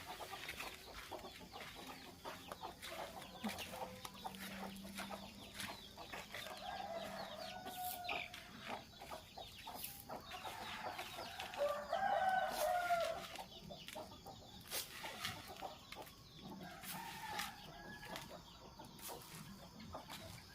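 Domestic chickens clucking and calling, with a louder run of calls about twelve seconds in and a few scattered sharp clicks.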